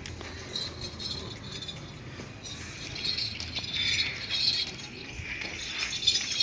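Light metallic jingling and clinking, busier in the second half.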